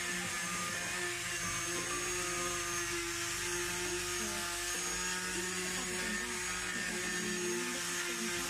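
Electric angle grinder fitted with a sanding disc, running steadily against the edge of a wooden board: a constant motor whine over a rough sanding hiss.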